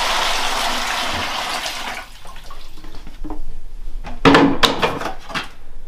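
Water pouring from a plastic bucket into a plastic mixing bucket, the stream tapering off about two seconds in: the mixing water for self-levelling compound. About four seconds in, a few sharp clattering knocks.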